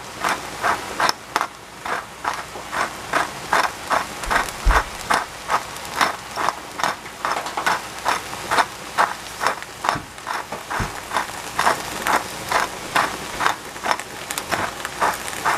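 Hand-twisted pepper grinder being turned, its mechanism clicking and crunching in a steady rhythm of about two to three clicks a second as pepper is ground out.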